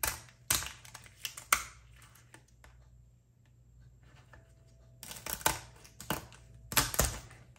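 Kitchen scissors snipping through raw lobster tail shells: a run of sharp clicking snips in the first second and a half, a lull, then another run of snips from about five seconds in.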